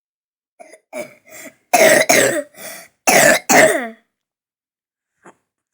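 A person coughing on purpose, as hard as they can: a few short throat-clearing coughs, then two loud double coughs about a second apart.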